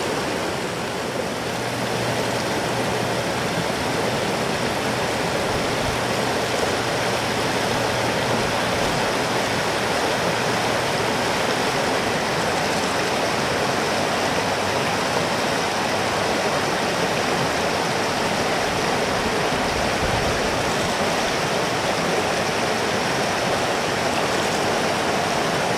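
Steady rush and splash of water pouring over a small weir into a stream.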